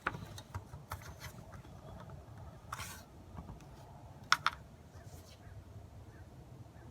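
Small clicks and scrapes of hand assembly work: small screws being fitted and turned in with a screwdriver. A short scrape about three seconds in and a sharp double click just past four seconds stand out.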